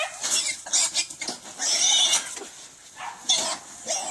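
Hog squealing in about five loud, shrill bursts, the longest nearly a second and a half in.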